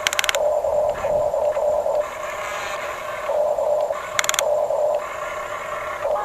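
Small electric gear motors of a radio-controlled construction model whining in repeated short spurts, stopping and starting as the functions are worked. A brief rattling crackle comes right at the start and another about four seconds in.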